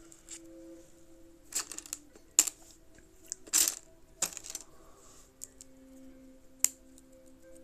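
Small hard plastic Lego pieces clicking and clattering as they are handled and set down, in a handful of sharp irregular clicks and short rattles, with a faint steady hum underneath.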